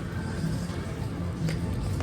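Poker room background: background music and a low murmur of voices, with one sharp click about one and a half seconds in.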